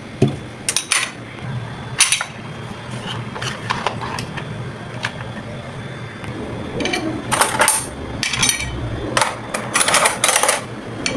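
Metal cutlery and kitchen tongs clinking and clattering as they are handled and put away in a utensil holder and a plastic dish drainer. The clinks are scattered at first and come thicker in the second half.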